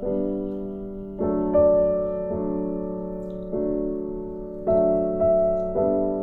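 Slow background piano music: chords and single notes struck every second or so and left to fade.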